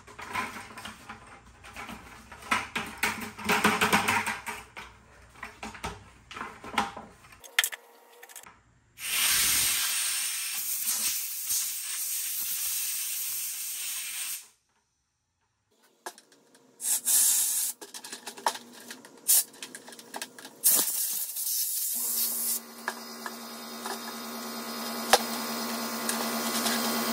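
Compressed air hissing in a steady blast of about five seconds from an air blow gun forced between two stuck-together plastic five-gallon buckets, with knocks and rubbing from handling the plastic buckets before and after. Near the end a steady hum comes in.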